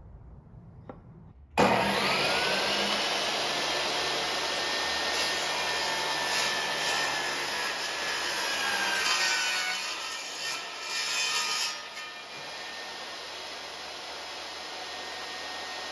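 An electric woodworking power tool switches on about a second and a half in, its motor spinning up, then runs loudly while cutting wood. Near the end it drops to a quieter steady running sound, with the tool no longer under load.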